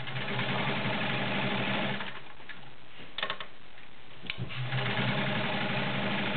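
Kenmore 1750 sewing machine's 1.2-amp motor running in two short bursts, stitching through 14 layers of thin fabric, with a few sharp clicks in the pause between the bursts.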